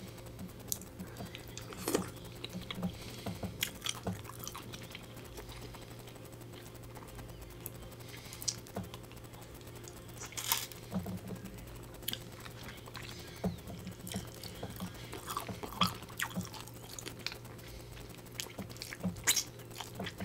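Close-miked eating of boiled crab meat: chewing and wet mouth sounds, with many short, sharp clicks and crackles scattered irregularly throughout. A faint steady low hum sits underneath.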